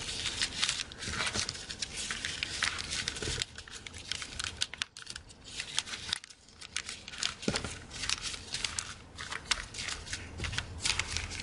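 Sheets of origami paper rustling and crinkling as the flaps of a square paper box are folded inward by hand and pressed along their creases, with many small crisp crackles and a quieter stretch around the middle.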